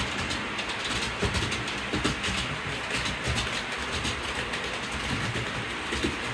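Train rolling along the track, a steady running noise with irregular clicks and knocks of wheels over the rails.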